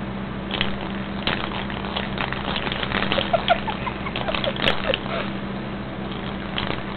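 Soft rustling and light tapping of a kitten batting at a dangling toy ball on bedding, over a steady low hum.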